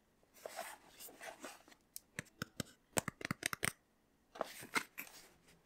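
Small cardboard box being handled: soft rustling of the card with a quick run of small clicks and taps about two to three and a half seconds in.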